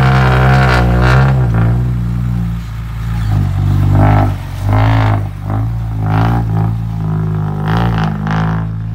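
Background music: a steady low drone and bass that change note partway through, under short wavering melodic phrases from a voice or lead instrument.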